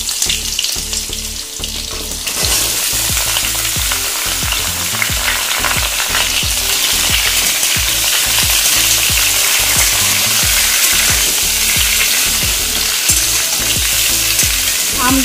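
Raw mango slices sizzling in hot mustard oil in a kadai, with a spatula stirring and scraping them against the pan. The sizzle grows louder about two seconds in.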